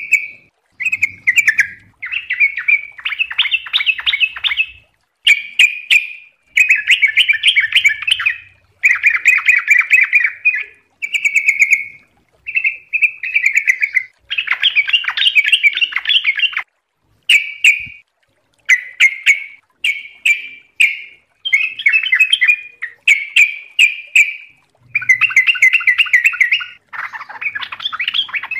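Yellow-vented bulbul (trucuk) singing: short warbling phrases, each a second or two long, repeated one after another with only brief pauses.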